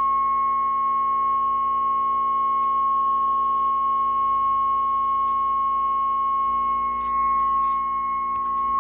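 A steady, unbroken tone of one pitch over a low hum from a vintage Zenith tube television's speaker; it is typical of a test-signal audio tone coming through the working sound section.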